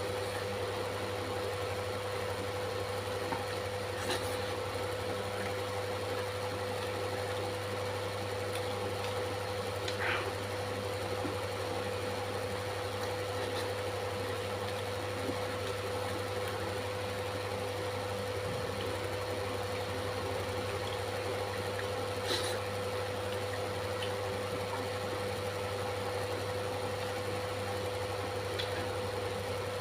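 A steady pitched hum over a faint hiss, with a few soft clicks here and there.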